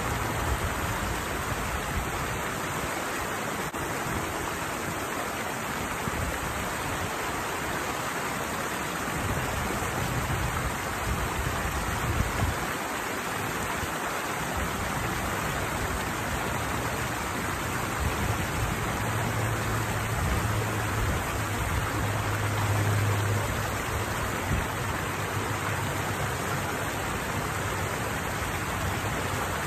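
Steady rush of water pouring over a small weir cascade.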